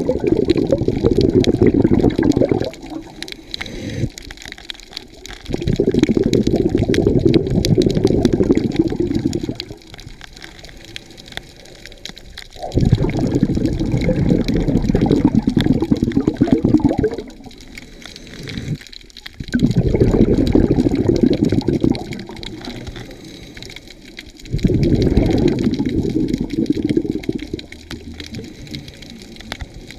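Scuba diver's exhaled bubbles gurgling out of the regulator, heard underwater through a GoPro housing. There are five long bursts of three to four seconds each, about every six seconds, with quieter inhalations between them.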